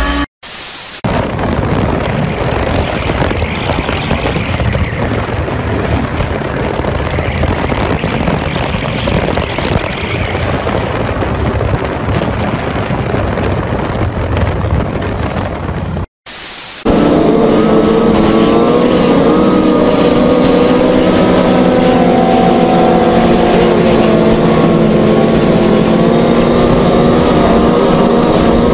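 Motorcycle engines during wheelies, in clips cut together with two brief drop-outs, about a second in and at about sixteen seconds. First comes a dense, noisy stretch of engine and wind. Then a sport bike's engine is held at a steady pitch with wind rush, heard from a camera mounted on the bike.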